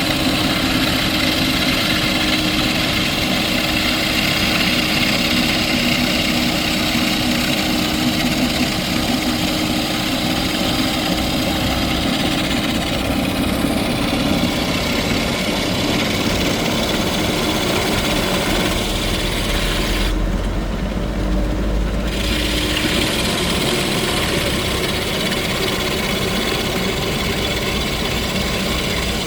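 A 50 mm hydraulic rock drill rig running steadily with its engine, drilling rock. About twenty seconds in, the higher drilling noise drops away for about two seconds, leaving a deep engine rumble, then it comes back.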